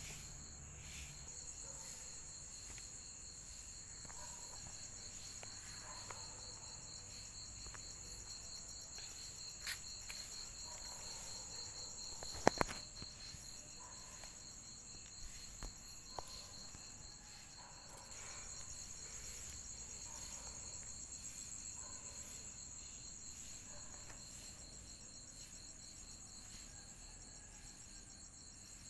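Night insects trilling steadily at two high pitches. A few short sharp clicks come midway, one louder than the rest.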